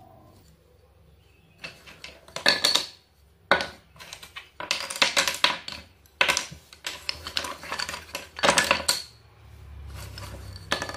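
Small cut plywood pieces clattering and knocking against each other and the tabletop as they are handled, in several separate bursts.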